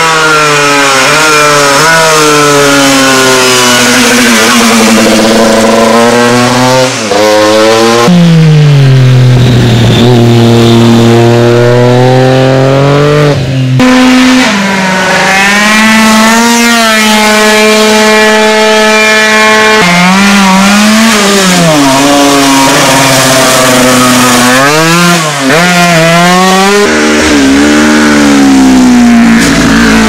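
Racing motorcycle engines at full throttle on a hill climb, one machine after another, the note climbing and dropping with each gearshift. In the middle a Piaggio Zip racing scooter holds one high, steady engine note for several seconds.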